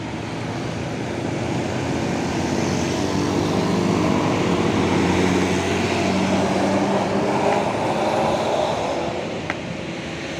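Tour bus's diesel engine working as the bus climbs the hill road past, growing louder toward the middle and easing off near the end, with tyre and road noise.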